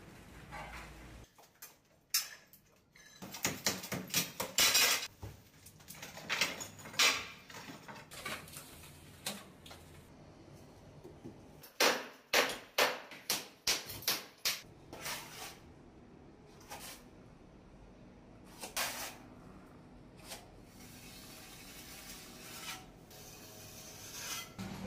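Hammer knocking old ceramic tiles off a kitchen wall: a run of sharp knocks and clinks in irregular clusters, busiest about two to five seconds in and again around twelve to fifteen seconds in.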